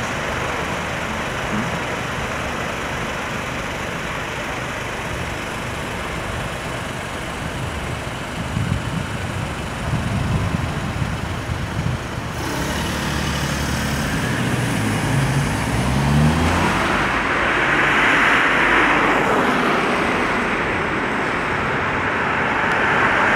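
Busy city street traffic: cars running and passing on a wide road, a steady mix of engine and tyre noise. It grows louder in the last few seconds.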